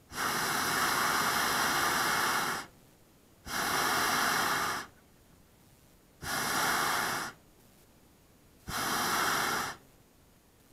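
Hot air balloon's propane burner fired in four blasts of steady roaring hiss, the first about two and a half seconds long and the others about a second each, each starting and stopping sharply.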